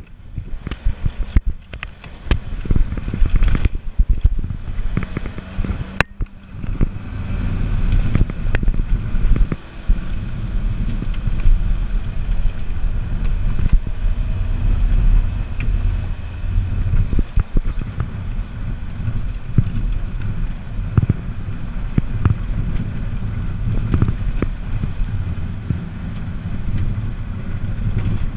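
Open-sided Pinzgauer off-road truck driving along a bumpy dirt track: a continuous low rumble with many body rattles and knocks as it jolts over the ground.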